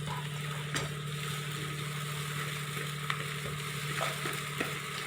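Onions, peas and spices sizzling in oil in a pan, with a few light clicks as the mixture is stirred.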